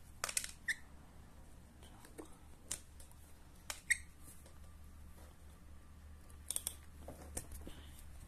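A few sharp clicks and light taps, scattered irregularly, over a faint low hum.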